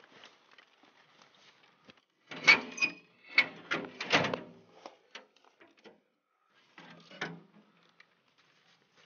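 Fishing rods and a fabric rod case being handled: rustling cloth and hard clacks of rod sections knocking together. The sounds come in a loud cluster about two seconds in and a shorter one around seven seconds.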